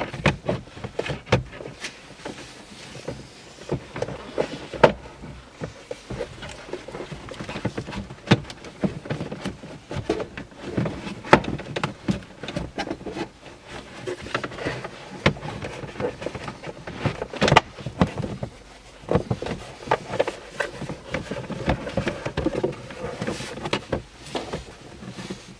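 Plastic glovebox of a Nissan Juke being worked back into its opening in the dashboard by hand: irregular plastic clicks, knocks and rattles, with a few sharper knocks among them.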